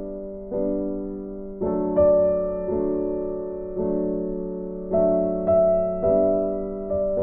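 Background music: a slow, gentle piano piece, its chords struck one after another and each left to fade.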